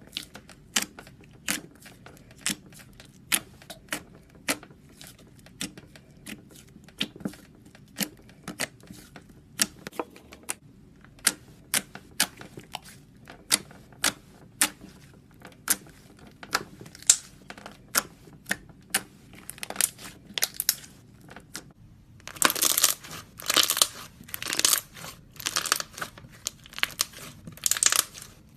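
Slime being poked and pressed, giving sharp sticky pops and clicks about twice a second. Near the end these turn into longer, denser crackling squishes.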